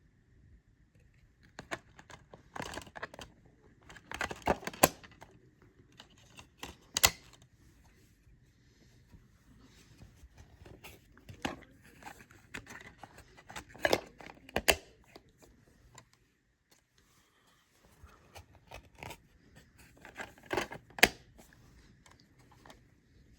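DVD box set packaging being handled and opened: irregular tearing and crinkling of wrapping with sharp clicks and knocks, coming in clusters with short pauses between them.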